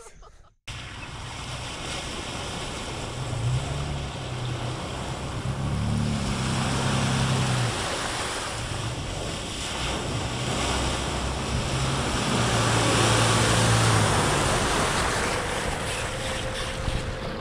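Toyota FJ Cruiser driving through a shallow, muddy river: a steady rush of splashing water with the engine running underneath. The engine grows louder twice.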